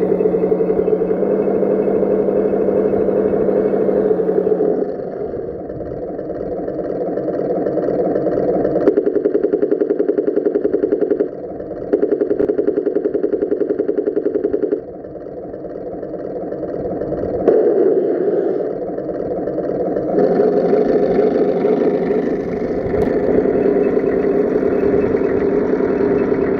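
Tamiya 1/16 M26 Pershing RC tank driving. Its engine sound rises and falls with the throttle, dropping back and building up again several times.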